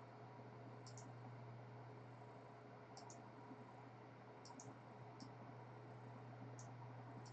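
Faint computer mouse clicks, a short click every second or two, some in quick pairs, over a low steady hum.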